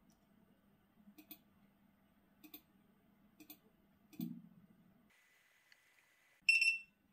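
Computer mouse clicking several times, then a short electronic beep near the end as a chip read is started on the programmer, preceded by a faint steady high whine.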